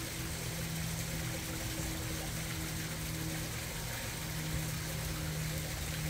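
Small backyard koi-pond waterfall splashing and trickling steadily into the pond, with a steady low hum underneath.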